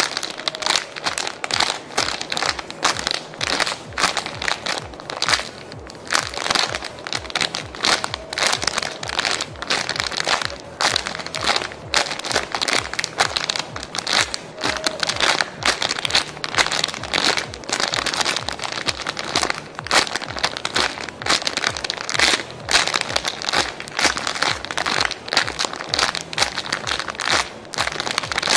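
Clear plastic bag crinkling in a dense, irregular run of crackles as the foam squishy toy sealed inside it is squeezed over and over by hand.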